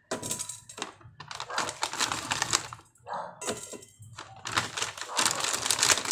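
Thin plastic noodle bag crinkling and rustling as hands grip it and pull dry rice vermicelli out of it, in two long runs with a short pause about three seconds in.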